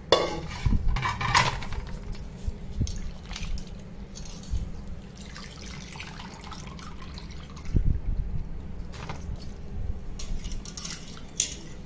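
Water splashing and dripping in a bowl as handfuls of soaked tamarind are squeezed and lifted out of the washing water, with the loudest splashes at the start and again about eight seconds in.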